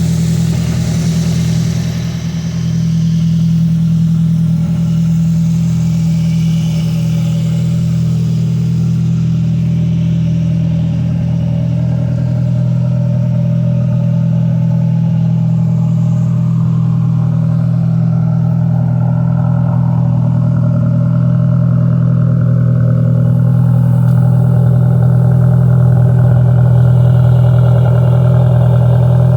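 1991 Nissan Stanza's 2.4-litre four-cylinder engine idling with a steady, even rumble.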